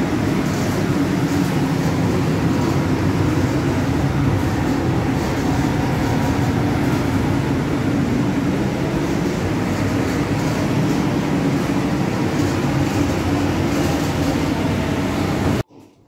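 Spray booth ventilation running: a steady, loud, even rush of air noise that cuts off abruptly near the end.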